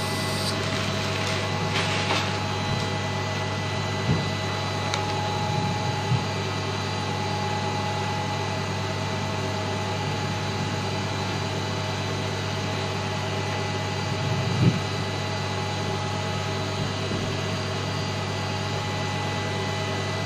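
Dental surgical suction running with a steady hum and whine, with a brief hiss in the first two seconds and a few faint clicks.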